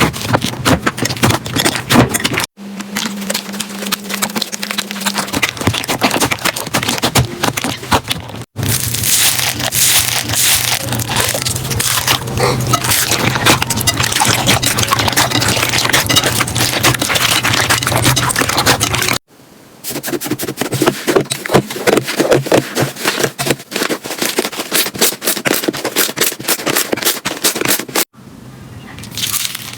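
Slime being squeezed, poked and stretched by hand, giving rapid crackling, popping and clicking. It comes in several short clips that cut off abruptly, about two and a half, eight and a half, nineteen and twenty-eight seconds in.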